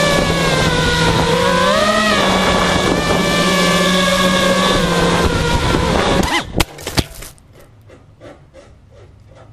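FPV quadcopter's brushless motors whining loud and steady, the pitch shifting up and down with the throttle. About six seconds in, a few sharp knocks mark a crash on landing and the motors cut out. A run of faint, evenly spaced ticks follows, about three a second.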